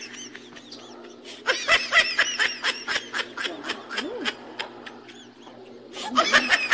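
High-pitched laughter in quick repeated bursts, one run starting about a second and a half in and another near the end.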